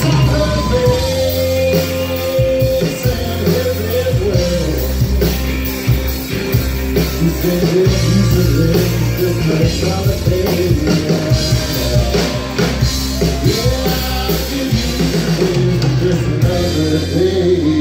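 Live country-rock band playing on after the last sung line: drums, bass and electric guitar, with a lead line bending in pitch.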